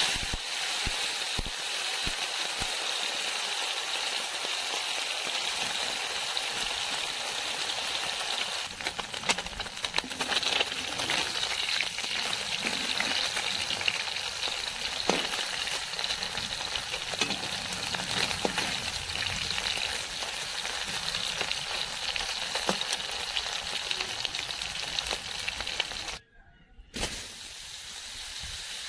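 Small whole fish deep-frying in hot oil in a wok: a steady sizzle, with scattered clinks and scrapes of a metal slotted spoon stirring them. Near the end the sizzle cuts out briefly and comes back quieter.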